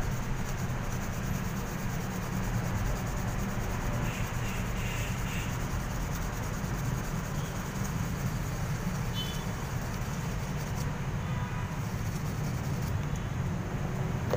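Sandpaper rubbed by hand against a small metal flashlight part: faint scratching over a steady low rumble of background noise.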